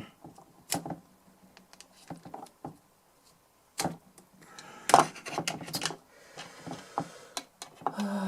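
Scattered sharp clicks and knocks, with a brief burst of clicking and scraping about five seconds in: small tools and metal parts being handled while probing a jammed input jack on a DI box.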